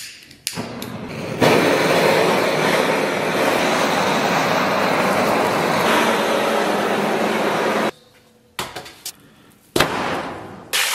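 Handheld butane blowtorch on a gas canister: a click or two as it is lit, then the flame's steady hiss for about six seconds while it singes the hair off pork skin, cutting off suddenly. A few light knocks follow, then a clunk as the pork slab is set into a steel bowl.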